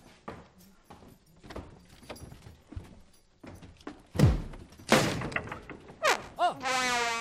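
Slow footsteps and knocks on wooden floorboards. From about four seconds in, louder swooping sounds come in: a deep downward plunge, then rising and falling swoops, ending in a held, wavering tone.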